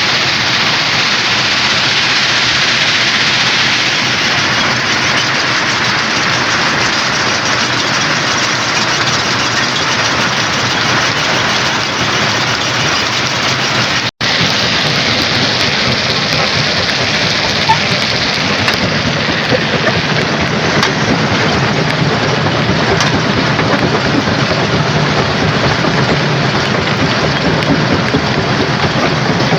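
Rock crusher running: a loud, steady, dense mechanical noise of machinery and crushing stone. It cuts out for an instant about halfway through, and a low hum grows stronger in the second half.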